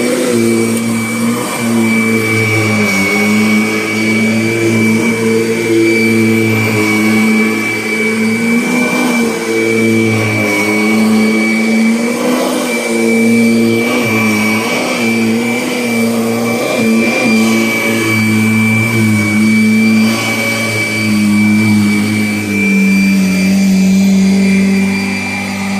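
Kirby Avalir upright vacuum cleaner running, a steady motor hum with a high fan whine on top. Its pitch sags and recovers several times, then settles lower near the end.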